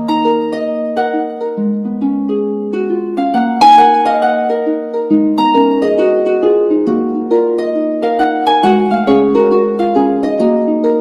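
Background music: a continuous, even run of plucked notes over a held low note.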